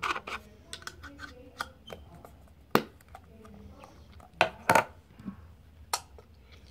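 Small metal shoe polish tin being handled: scattered light clicks and taps of the tin and its lid, with a few sharper knocks, the loudest about three seconds in and two close together past the middle.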